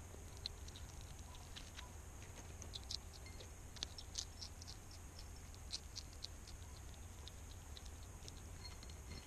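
European hedgehog eating close to the microphone: faint, irregular small clicks and crunches, most frequent in the middle few seconds, over a steady low hum.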